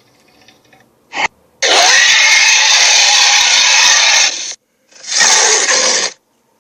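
Creature sound effects, harsh rasping roar-like calls: a short burst about a second in, then a long call lasting about three seconds, then a shorter one about a second long.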